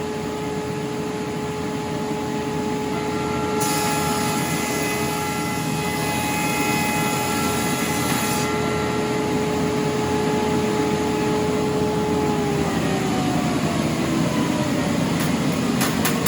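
Large shop thickness planer running with a steady hum. From about four seconds in to about eight and a half seconds in, a board feeds through on the final pass and the cutterhead cuts with a loud hiss. Later the hum falls in pitch as the machine winds down, with a few clicks near the end.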